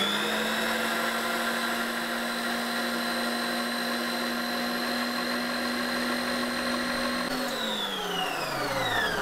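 Electric stand mixer motor running steadily on high, a whine with many tones, beating egg whites. About seven seconds in it is switched off and the whine falls in pitch as the motor spins down.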